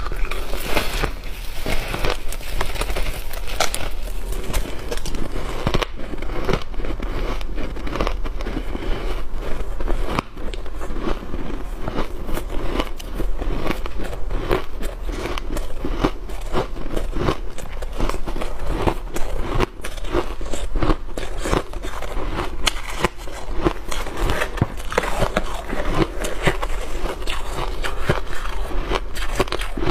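Close-miked shaved ice being bitten, chewed and squeezed by hand, a dense, continuous run of crisp crunches and crackles over a steady low hum.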